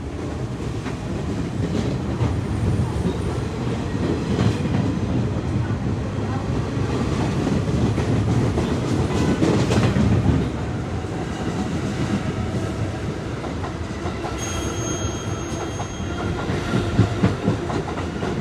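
R46 subway train pulling out of the station, its cars running close past with steady, loud wheel-on-rail noise and a brief high whine about two-thirds through.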